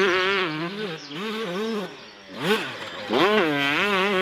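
Dirt bike engine revving with a buzzing note that rises and falls with the throttle. It drops off about two seconds in, revs back up, then holds a high steady note.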